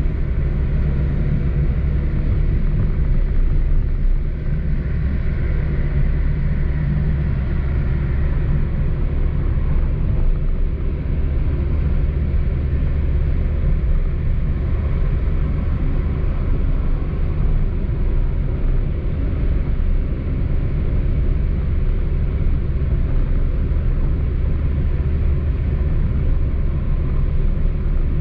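Steady low rumble of a car driving, engine and road noise blended, with no distinct events.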